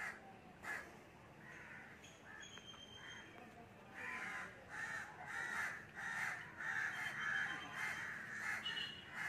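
Harsh, rough bird calls in a rapid series, about two or three a second, starting about four seconds in, with a faint high whistle a little before.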